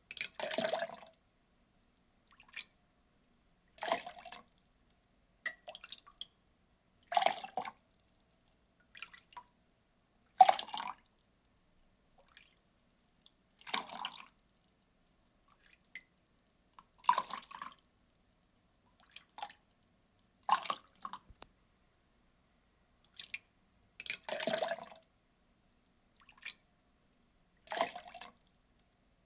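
Water being poured in short splashes, each lasting about a second and coming every three to four seconds, with small drips in between.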